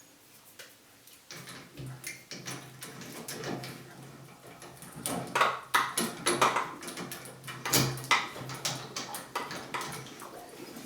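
Irregular clicks, scrapes and knocks of hand tools working on a Moen shower valve cartridge, busier in the second half, with a low steady hum starting about a second in.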